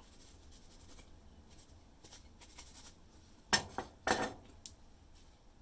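Light clicks and taps of a small plastic-and-metal toy car and its parts being handled, with two louder knocks about three and a half and four seconds in.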